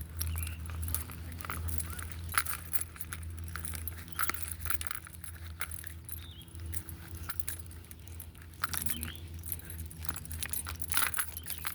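Small metal pieces jingling and clicking irregularly, as a dog's collar tags and leash hardware do on a walk, over a steady low rumble.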